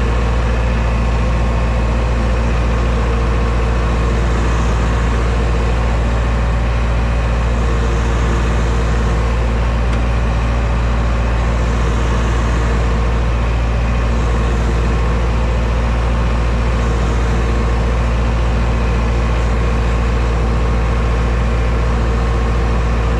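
Machinery running steadily with a deep, even drone.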